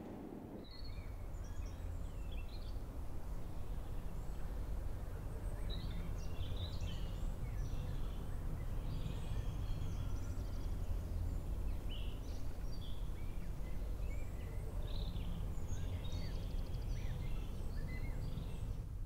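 Outdoor ambience of birds chirping: many short, scattered calls, high-pitched, over a steady low rumble.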